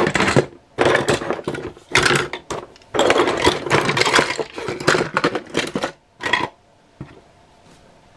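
Loose G1 Transformers toys clattering and rattling against each other and the cardboard box as a hand rummages through them. The hard plastic pieces knock together in several bursts that stop about six and a half seconds in.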